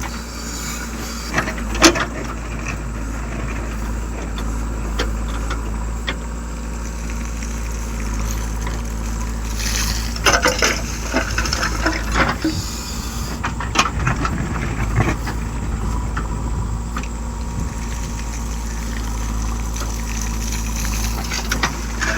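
Tractor engine running steadily at a constant speed, with occasional rattles and clatters.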